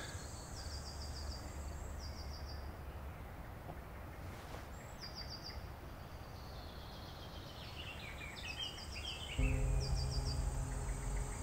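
Insects chirping in short, rapid trains, repeating every second or two, over field ambience, with a bird singing a few descending notes about eight seconds in. A low, steady hum comes in about nine seconds in and holds.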